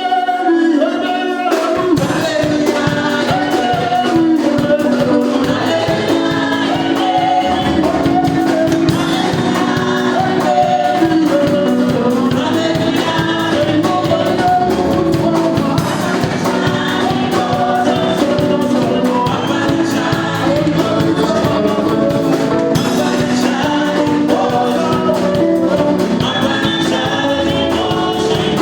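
Live gospel song: singing over a band, with a steady beat coming in about two seconds in.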